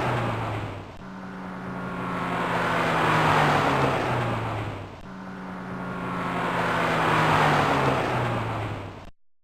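BMW E30 driving past, its engine and exhaust note swelling as it approaches and dropping in pitch as it goes away. The same pass-by is heard twice in a row, and the sound cuts off abruptly near the end.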